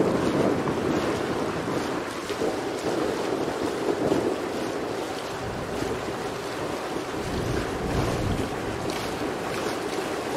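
Wind buffeting the microphone over water rushing past the hull of a moving sailing catamaran, a steady noisy wash with a stronger low gust of wind about seven to eight seconds in.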